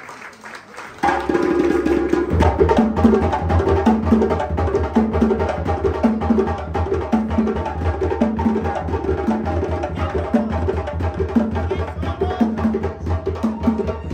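Music with a steady, repeating drum beat and heavy bass starts abruptly about a second in, cutting in over the faint tail of applause.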